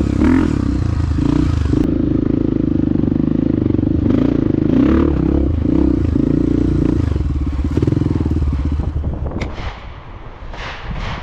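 Dirt bike engine running hard, its pitch rising and falling several times as the throttle is worked, then dropping away about nine seconds in, followed by a few short clattering knocks.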